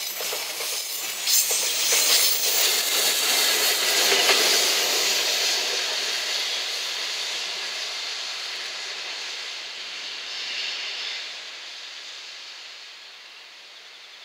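Container freight train running past close by, its wheels clattering over the rail joints with a loud hiss of steel on rail. The sound then fades steadily over about ten seconds as the train draws away with an EF67 electric banking locomotive pushing at the rear.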